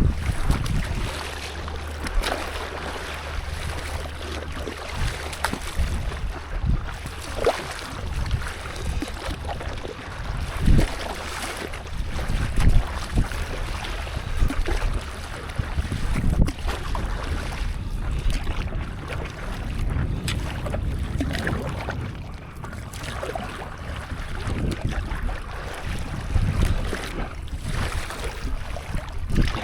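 Sea water lapping and splashing irregularly around a stand-up paddleboard, with wind buffeting the microphone in a steady low rumble.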